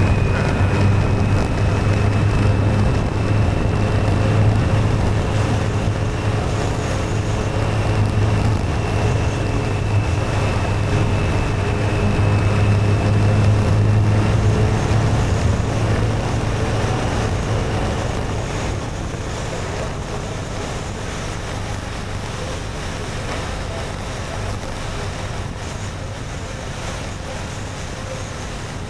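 Motorcycle engine running steadily while riding, with wind rushing over the microphone. About two-thirds of the way through the engine hum fades and the whole sound grows quieter, as the bike eases off.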